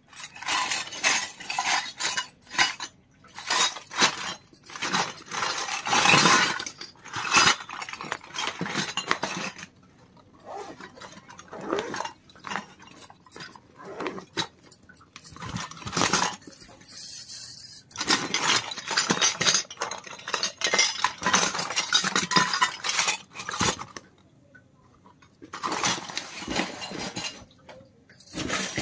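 Miniature stainless-steel toy kitchen utensils clinking and rattling against each other, with rustling of the clear plastic zip pouch they are packed in as it is handled. The clinks come in rapid, irregular clusters, broken by a couple of short pauses.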